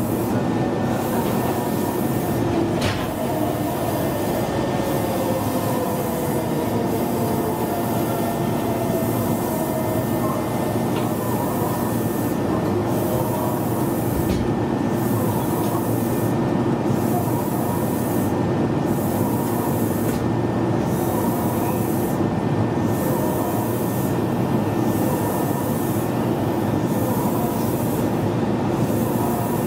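Meitetsu 1200 series electric train running at speed, heard from on board: a steady rumble of wheels on rail and running gear. A faint whine falls in pitch over the first several seconds, and there is a single click about three seconds in.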